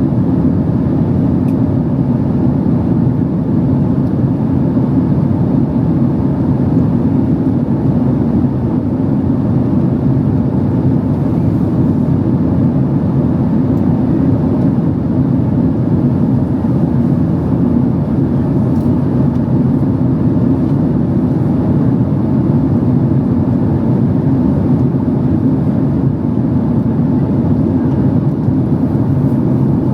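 Steady cabin noise inside a Boeing 767-300 airliner in flight: an even, deep rush of airflow and engine noise that does not change.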